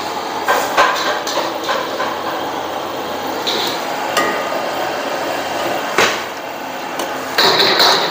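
Irregular knocks and clatter of cooking utensils on pots and a board, with a cluster of clattering near the end, over a steady background hiss.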